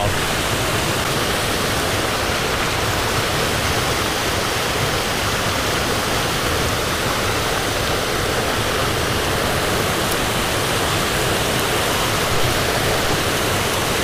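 Loud, steady rush of mountain-stream rapids, whitewater pouring over and around boulders.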